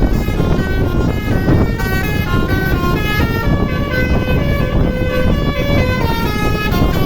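A Dewi Permata bus's basuri musical horn playing a quick tune of stepped notes, one note after another, over a loud low rumble.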